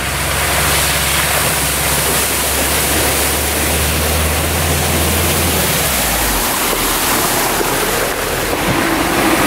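Off-road SUV engine running with a low steady drone under a loud, even rushing noise; the engine drone drops away about six seconds in while the rush continues.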